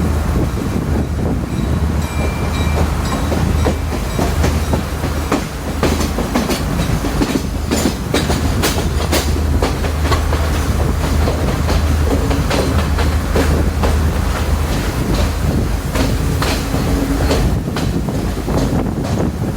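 Diesel multiple-unit express train running on the line: a steady low drone under frequent, irregular clicks and knocks from the wheels over the rail joints.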